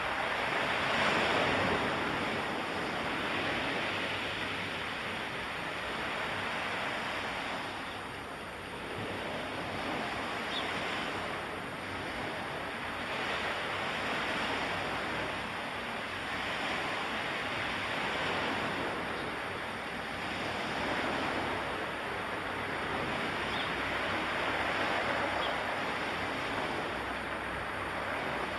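Surf-like rushing noise that swells and eases every few seconds.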